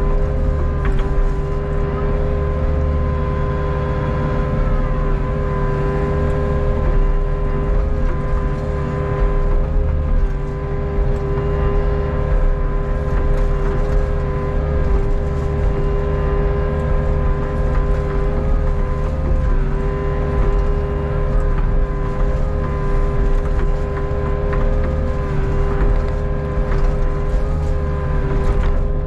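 Hitachi ZX48U mini excavator's diesel engine running steadily while it digs, with a steady whine over the engine drone.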